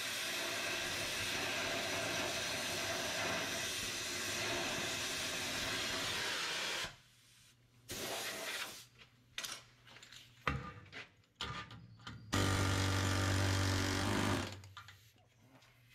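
Cutting torch hissing steadily for about seven seconds as it heats and cuts seized suspension bolts, then going quiet. A few scattered knocks follow, and a steady low hum comes in for about two seconds near the end.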